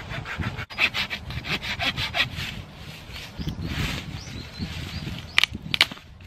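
Small hand saw cutting through a wooden branch: a quick run of back-and-forth strokes, then slower strokes, with two sharp clicks near the end.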